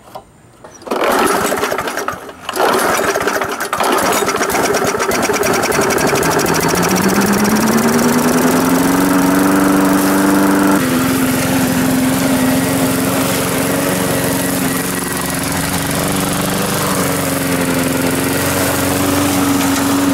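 Weed Eater 22-inch push mower's 3.75 hp engine pull-started on fresh fuel after running dry: it catches about a second in, falters briefly, then runs, its pitch rising over a few seconds as it comes up to speed and then holding steady.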